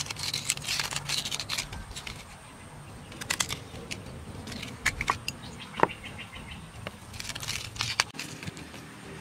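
Fingers squeezing and packing a moist, crumbly filling by hand and gathering it off a ceramic plate: scattered small crackles, squelchy clicks and light scrapes in short clusters, with one sharper click about six seconds in.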